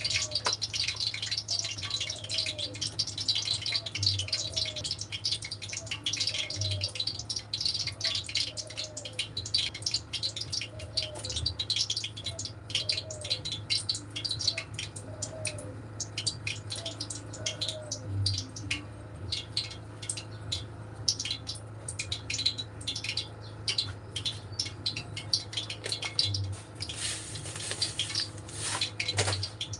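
Dense gritty rattling and crackling of dry crumbs being worked by hand in a metal tray, busiest in the first half and thinning out later. Water from a tap splashes briefly near the end.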